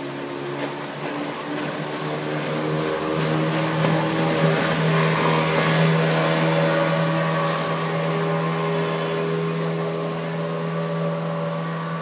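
Speedboat's outboard motor running at speed as the boat passes close by, its steady engine note and the hiss of spray swelling to a peak around five seconds in, then fading as it speeds away.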